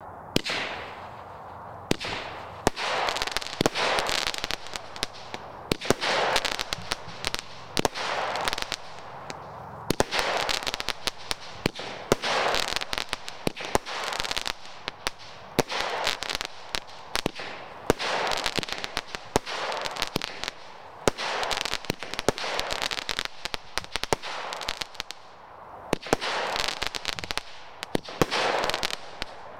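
Brothers Pyrotechnics 'Crimson Dynamo' firework cake firing shot after shot, about one every two seconds: each a sharp launch pop followed by a burst of dense crackling.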